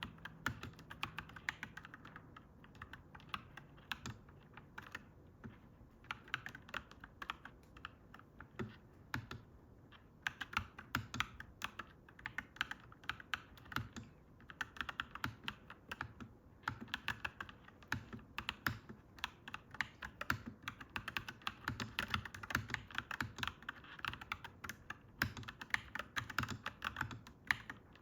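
Clacky mechanical keyboard being typed on in quick, irregular runs of keystrokes, broken by short pauses.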